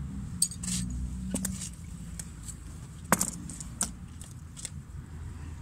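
Nails and a screw from a magnet-fishing haul clicking and clinking against each other and the magnet. There are half a dozen separate metallic clicks, the sharpest about three seconds in.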